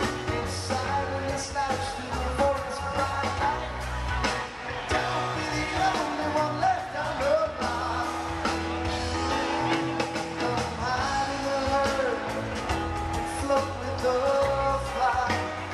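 Live rock band playing a song with a lead vocal, guitar, bass and drums, heard through the amplified PA from out in the audience on a small camcorder microphone.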